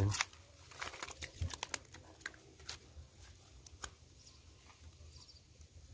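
Rustling and scattered sharp clicks from handling a bunch of freshly caught tilapia strung together through the gills, busiest in the first few seconds and sparser after.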